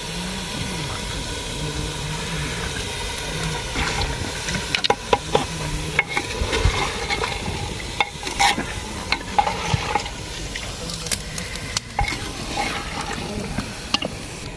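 Chicken frying in a pot with a steady sizzle, stirred with a spoon that scrapes and clinks against the pot, the clinks coming more often from about four seconds in.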